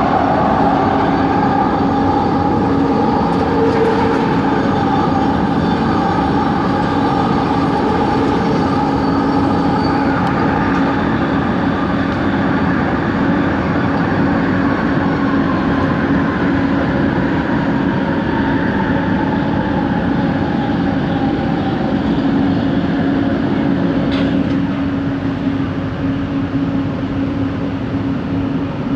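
Rail car running, heard from inside: a steady hum with a motor whine above it that falls slowly in pitch through the middle of the stretch, typical of the train slowing. This is the odd motor noise traced to that coach's traction motors.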